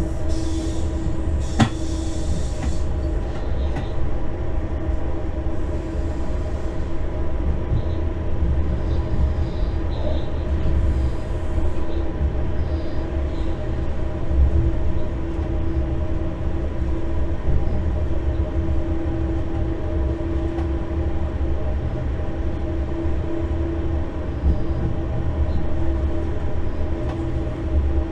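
Electric locomotive running along the line, heard inside the cab: a steady low rumble from the wheels and running gear with a steady electric hum over it. A single sharp click comes about one and a half seconds in.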